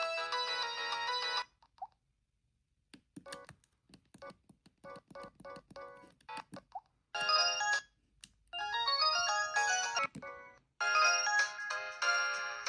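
Samsung SGH-E890 mobile phone playing its built-in ringtones through its small speaker: one polyphonic melody stops about a second and a half in, a run of short irregular clicks follows after a pause, and new tone melodies start at about 7 s and again near the end.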